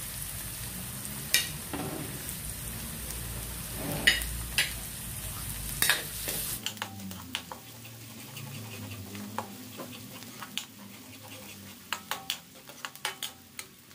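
Garlic and chopped onion sizzling in hot oil in an aluminium wok, with sharp clicks and taps against the metal. The sizzle quietens about halfway through, and a quick run of small clicks follows.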